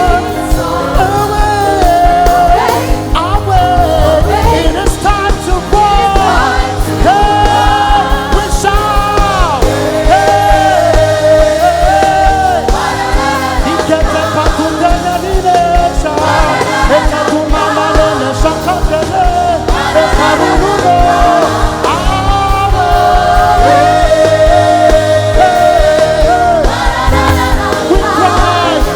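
Live gospel worship music: a band playing under long, sliding wordless vocal lines.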